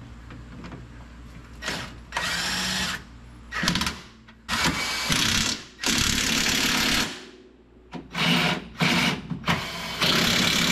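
A handheld power tool running in repeated short bursts, about seven in all, each lasting up to a second or so, with quieter gaps between them.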